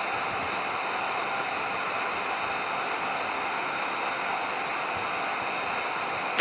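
Hair dryer running steadily: an even rushing hiss with a faint high motor whine.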